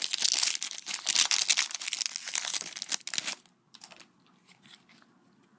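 A foil trading-card pack wrapper being torn open and crinkled for about three seconds, then only a few faint handling ticks.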